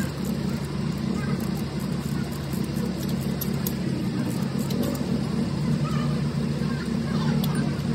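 An engine running steadily with an even drone, while hand tools give faint metal clicks on top.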